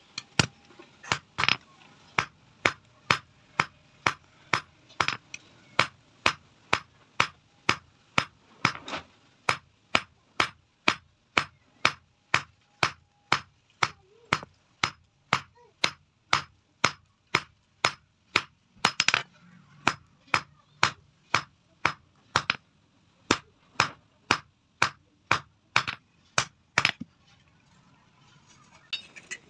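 Blacksmith's hand hammer striking a red-hot metal bar on an anvil, an even run of ringing blows about two a second. The blows pause briefly near the end.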